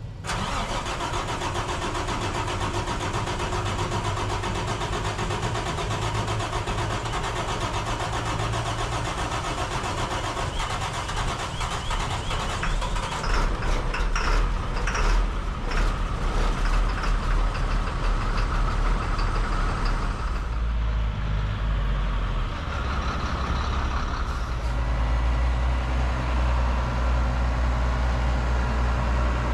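Freightliner dump truck's diesel engine starting and then idling steadily. About 20 seconds in, the sound changes to a deeper, heavier engine rumble from a farm tractor working its front loader to lift a round hay bale.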